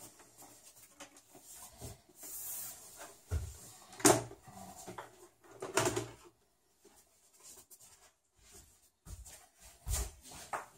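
The metal top cover of a Sony VAIO VGX-XL desktop case being slid back and lifted off: a scraping slide, then a sharp knock about four seconds in, another near six seconds, and a few softer knocks toward the end.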